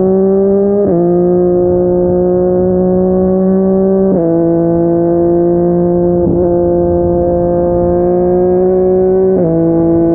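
Yamaha MT-09 three-cylinder engine through a Yoshimura R55 slip-on exhaust, pulling steadily on the road. Its pitch creeps up and drops sharply three times as it shifts up a gear.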